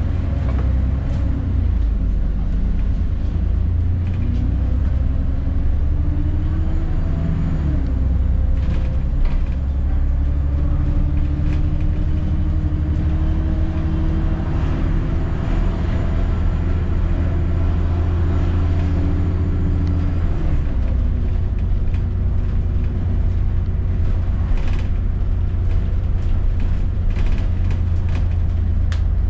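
ADL Enviro400 double-decker bus engine running under a heavy low rumble. Its note climbs as the bus pulls away, drops at a gear change about seven seconds in, then rises again and holds before falling away about twenty seconds in. A few light clicks and rattles are heard here and there.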